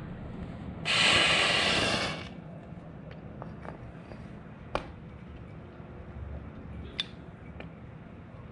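Hot cast metal ingot hissing with steam for about a second as it meets ice and meltwater, starting about a second in. A couple of sharp ticks follow later.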